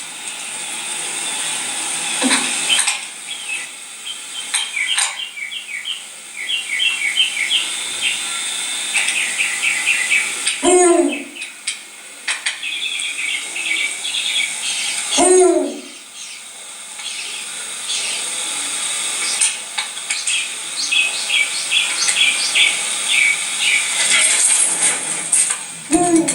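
Barn owl calls: repeated rapid trains of high, chittering clicks, with four short sounds that fall steeply in pitch in between.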